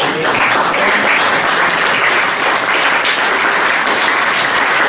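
Church congregation applauding and cheering, a steady wash of clapping.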